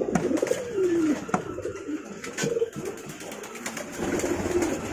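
Domestic pigeons cooing: low calls that slide down in pitch, repeated several times, with a few light clicks among them.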